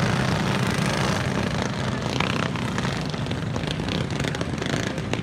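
Go-kart engines of the small 5 hp Briggs & Stratton kind buzzing as a pack of karts races around a dirt track. The drone eases slightly about halfway through.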